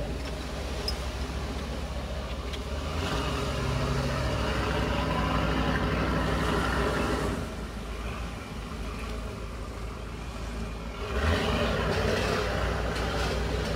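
Lifeboat engine running steadily as the boat moves off across the harbour, with a rushing noise that swells twice, about three seconds in and again near the end.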